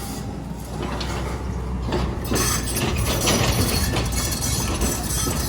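Backhoe engine running with metal clanking and the clatter of rocks being moved, the clinks getting busier about two seconds in.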